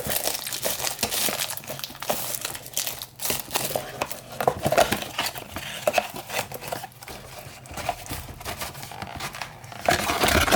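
Packaging being opened by hand: irregular crinkling and tearing as a trading-card mega box is unwrapped and opened.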